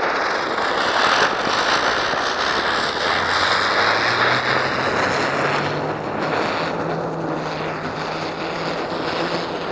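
Ground spinner (chakri) firework whirling on the ground, giving a steady hiss of burning sparks.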